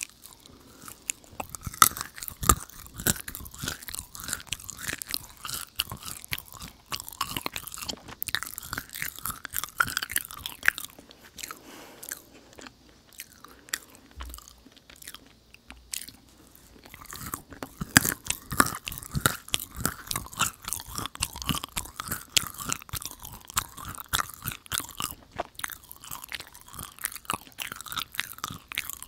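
Close-miked chewing of a soft, chewy Hadir dried date, full of sticky, wet mouth clicks. It comes in two bouts, with a quieter pause about halfway through.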